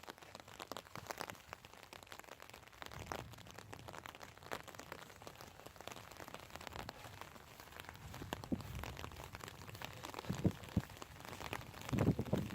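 Rain falling, with many scattered drops ticking close by. A few dull thumps come near the end.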